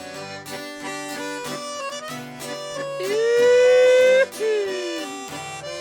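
Country band playing an instrumental break between sung verses: a steady bass and rhythm-guitar beat, with a lead melody instrument holding one loud note that bends upward about three seconds in and breaks off a second later.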